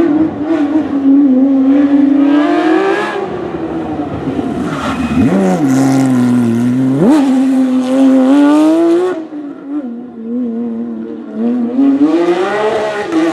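Rally car engine revving hard on the stage, its pitch climbing and dropping with the throttle and gear changes. There are sharp rev rises about five and seven seconds in. The engine drops quieter for a few seconds and then rises again near the end.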